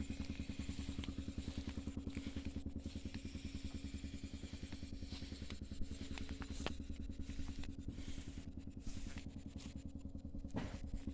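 An engine idling steadily, with a rapid even pulsing and a constant low hum, and a few faint clicks over it.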